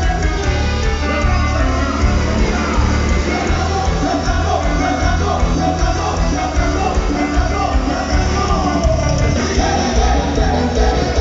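Live dance band with horns and congas playing loud amplified music over a heavy, steady bass.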